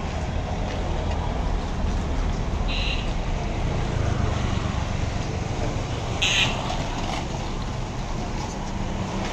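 Street traffic: a steady rumble of motorbikes and cars going by, with two short high-pitched tones, one about three seconds in and a louder one a little after six seconds.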